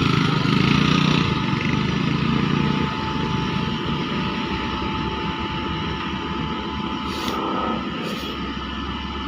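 Excavator engine running steadily, a little louder for the first three seconds and then easing off slightly.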